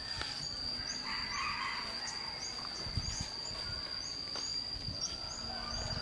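Outdoor daytime ambience: a steady high-pitched insect drone, with a short high chirp repeating about twice a second over it. Faint rustling about a second in.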